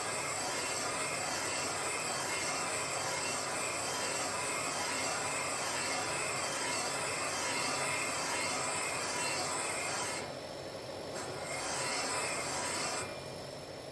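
Machine tool cutting valve or valve-seat surfaces for a Porsche 911SC cylinder head, a steady grinding noise. It drops away about ten seconds in, comes back briefly, then stops near the end.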